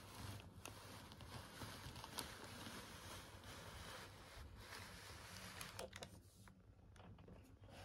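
Faint rustling and crinkling of a paper burger wrapper as it is handled, with a few small clicks, fading out about six seconds in.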